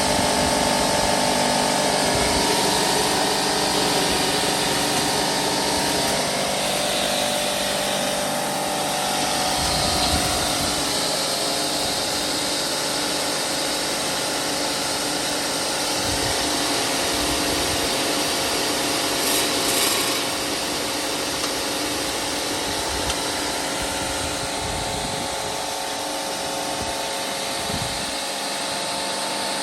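Edco DS18-5B 18-inch electric walk-behind concrete saw running steadily: its electric motor and spinning blade give a constant whine of several tones over a hiss.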